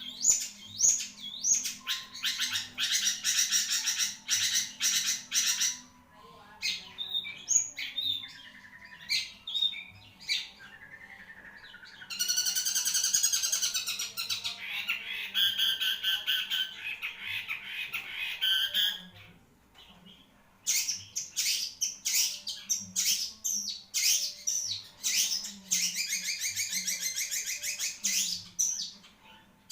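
Long-tailed shrike (cendet) singing long, fast runs of sharp, harsh repeated notes, pausing briefly about two-thirds of the way through before starting again.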